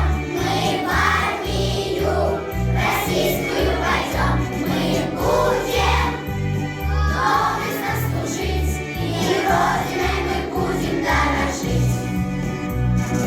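A song with a steady beat, sung by several voices together.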